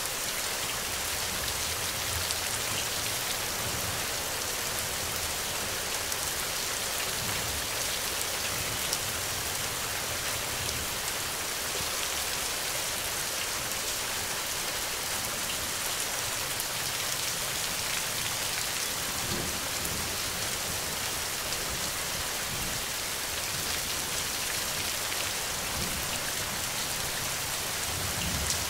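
Steady rain falling, an even hiss with scattered drop ticks, with low rumbles of thunder about two-thirds of the way through and again at the end.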